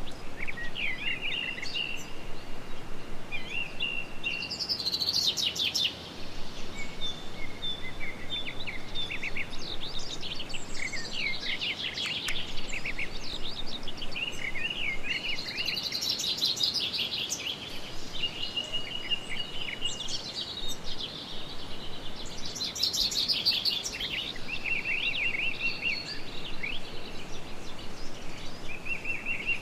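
Several songbirds singing at once, a dense run of quick chirps and trills overlapping each other, over a steady background hiss.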